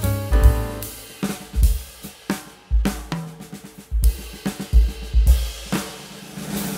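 Background music led by a drum kit: kick drum, snare and cymbals over a bass line, with the melody dropping out to mostly drums in the middle.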